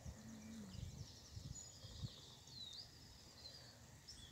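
Faint birds chirping and twittering in short high calls, with a few soft low thumps in the first two seconds.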